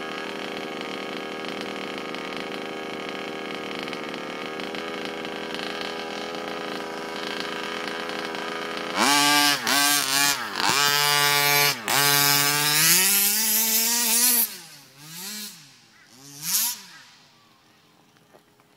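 HPI Baja 5B SS RC buggy's small two-stroke petrol engine running steadily at a low, even pitch, then from about nine seconds in revving hard in repeated bursts with the pitch swinging up and down, followed by two short throttle blips.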